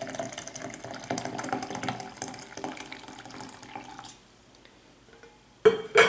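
Hot water pouring from a kettle into a glass French press onto coffee grounds, a splashing trickle that stops about four seconds in. A short knock comes near the end.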